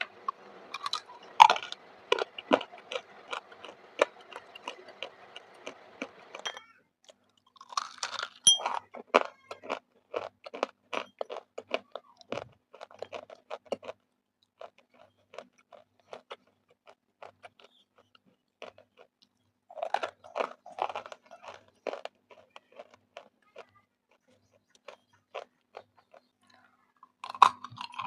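Close-miked biting and chewing of roasted Russian clay (edible clay): crisp, dry crunches that come in dense clusters with quieter, sparse chewing between them.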